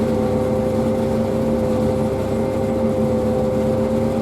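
Farm harvest machine's engine and drive running steadily: a continuous drone with a few held humming tones over a low rumble.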